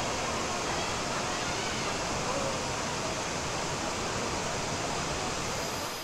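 Steady rushing of a waterfall, an even hiss of falling water that drops in level just before the end.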